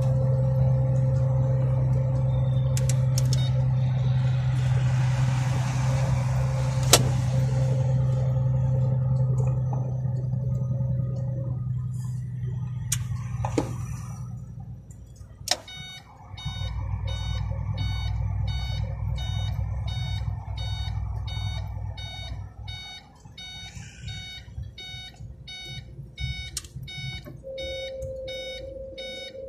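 Iveco semi-trailer truck's diesel engine running steadily under way, heard from inside the cab, then easing off about halfway through. From about the middle a steady run of evenly spaced electronic beeps starts and keeps going, with the engine quieter beneath.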